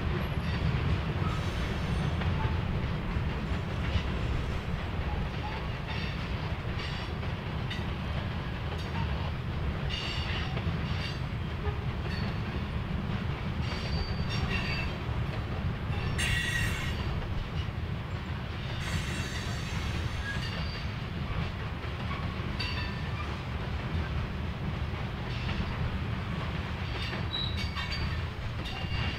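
Railroad cars of a passing train rolling by: a steady rumble of wheels on track, with brief wheel squeals now and then.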